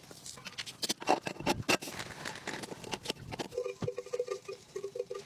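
Irregular clicks and knocks of camping gear being handled, then, from about three and a half seconds in, a cowbell clanking in a quick run of short rings.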